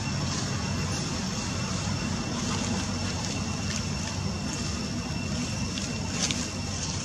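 Steady low outdoor rumble, with a constant high-pitched whine over it and a few faint ticks near the end.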